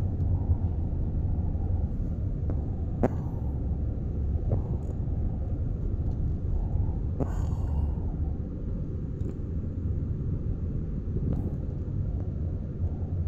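Steady low rumble of a car driving, heard from inside the cabin: engine and tyres on the road. A few short clicks come through now and then.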